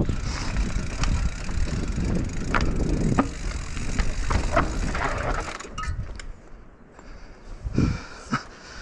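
Radon Swoop enduro mountain bike rolling fast down a rough, rocky dirt trail: tyre and trail rumble with rattling and sharp clicks as the wheels hit rocks and roots. It goes quieter about two-thirds through as the bike slows, then a couple of knocks near the end.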